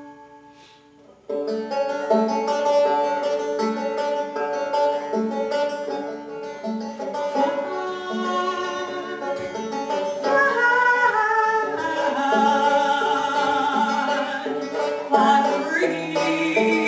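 Solo banjo: a ringing chord dies away, then about a second in a steady picked rhythm starts with a low note recurring. A woman's voice comes in singing over the banjo in the second half.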